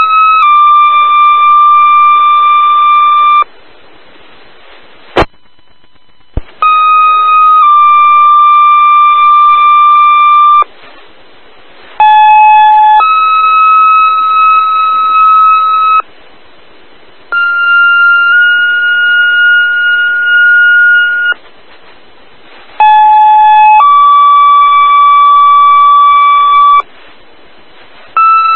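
Fire dispatch radio two-tone sequential paging tones, the alert that calls fire stations to a dispatch. Each page is a short steady tone of about a second stepping straight into a longer steady tone of about three seconds. About six such pairs, each at different pitches, follow one another with a second or so of radio hiss between them.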